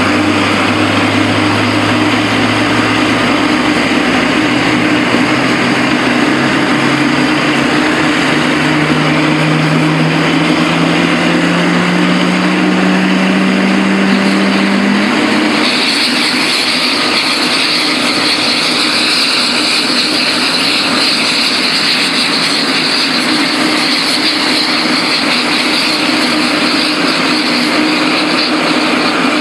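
Boeing 777 freighter's GE90 turbofan engine starting up: a whine climbs slowly in pitch as the engine spools up, and a higher whine sets in about halfway through, over a steady hum.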